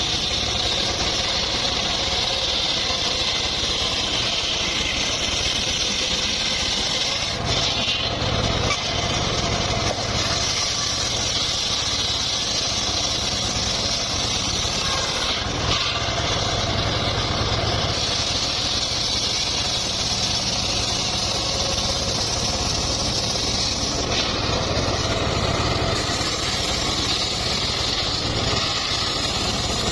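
Engine of a powered wood saw running steadily while mahogany timber is being sawn, with brief changes in its higher sound every several seconds.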